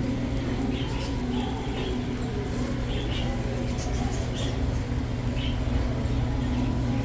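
Small caged pet-store birds chirping: short, scattered high chirps every half second or so over a steady low hum.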